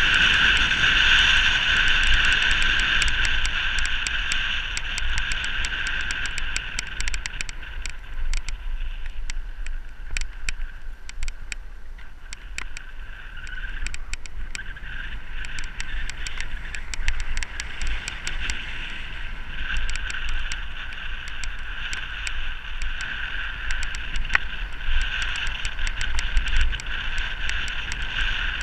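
Wind rush on the microphone and rolling road noise from a road bike descending fast, with a steady high whir and frequent small rattling clicks.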